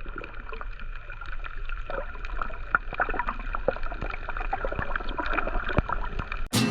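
Water splashing and sloshing around a boat in an irregular patter, over a steady high hum and a low rumble. Background music cuts in near the end.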